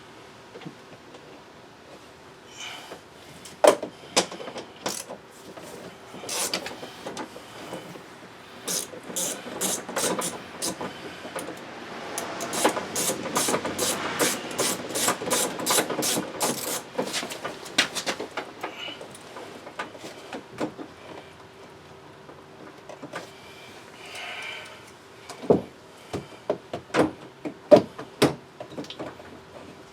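A socket ratchet clicking in a quick, regular run for several seconds midway as the 10 mm bolts under the door handle are backed out. Scattered knocks and clinks of tools and loose door parts come before and after.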